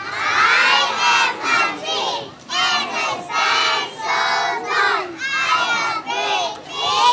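A group of children chanting loudly in unison, in short shouted phrases with brief pauses between them.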